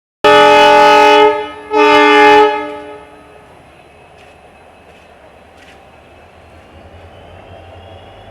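WDP4D diesel locomotive's horn sounding twice, a long blast then a shorter one, followed by a faint low rumble of the train standing.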